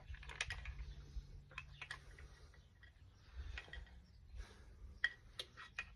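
Faint, irregular small clicks and taps of needle-nose pliers working the paper oil filter out of a KX250 dirt bike's filter housing.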